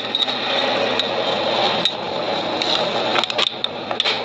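Water poured from a plastic bottle splashing over a bare aluminium motorcycle crankcase half, rinsing off the soap-and-thinner cleaner and loosened grime. The splashing is steady, with a few light clicks and knocks, several of them about three seconds in.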